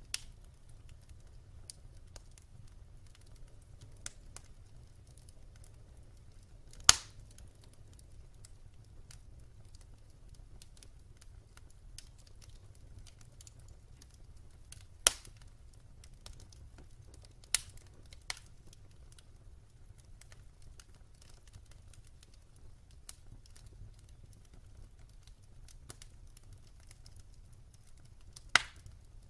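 Wood fire burning in a fireplace: a low steady rumble with sparse crackles and a few loud sharp pops from the burning logs.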